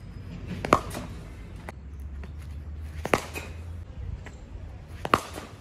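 Three sharp wooden knocks about two seconds apart, with a few fainter clicks between: a cricket bat tapped on the cement net pitch at the crease.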